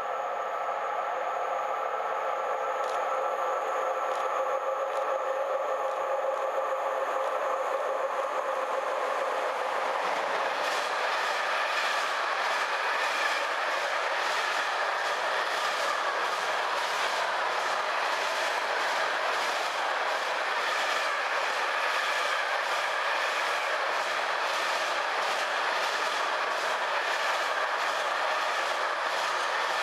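Green Cargo Rd2 electric locomotive approaching with a steady multi-tone hum. After about ten seconds a long freight train of container wagons rolls past, with a steady rolling rumble and an even clickety-clack of wheels over the rail joints.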